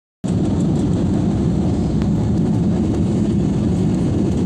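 Steady low rumble of airliner cabin noise after landing, engines and airflow heard from inside the cabin, cutting in about a quarter second in and holding even.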